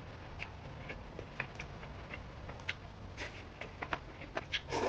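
Quiet eating sounds: a string of small, sharp clicks and taps, a few a second and a little busier near the end.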